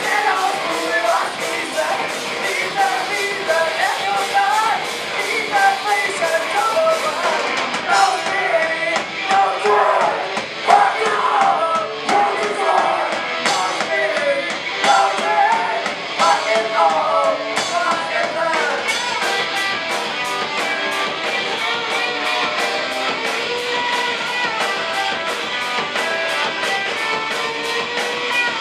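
Hardcore punk band playing live: electric guitars and drums. A singer's voice runs over the first half or so, and the band plays on mostly instrumental near the end.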